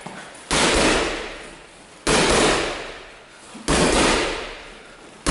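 A loud crash-like hit, sudden at the start and fading away over about a second and a half, repeating evenly about every 1.6 seconds: three times, with a fourth just at the end.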